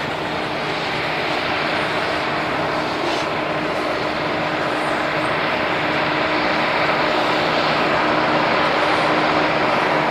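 Loaded coal train passing: the hopper wagons' wheels roll steadily on the rails over a steady diesel locomotive drone that grows slowly louder as the locomotives draw nearer.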